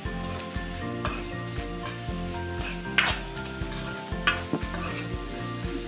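Steel spatula scraping and tossing shredded vegetables in a hot wok while they sizzle in oil. There is a string of scrapes, the loudest about halfway through.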